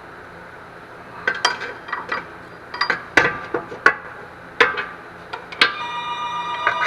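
Hand tools and metal engine parts clinking and clanking at uneven intervals, with one strike leaving a ringing metallic tone for over a second near the end.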